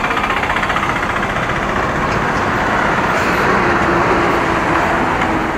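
Heavy diesel goods lorry driving past at close range, its engine running loud with a fast, even beat. The sound builds to its loudest a little after the middle.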